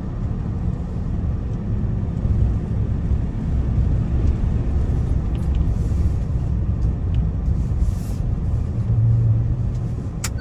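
Ford Transit camper van driving on a snow-packed road: a steady low rumble of engine and road noise, heard from inside the cab.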